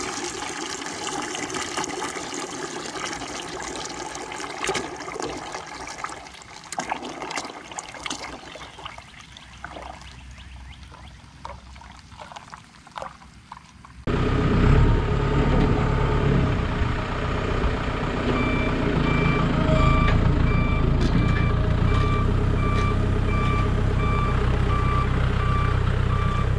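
Engine oil pouring out of the drain of the 8V71 two-stroke Detroit Diesel, the stream dying away to scattered drips. About halfway through, the sound switches to a heavy machine's diesel engine running, with a reversing beeper starting to beep steadily a few seconds later.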